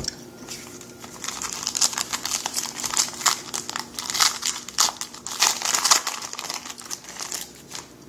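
Crinkling and crackling of a trading card pack's foil wrapper being handled and torn open, in irregular crackles.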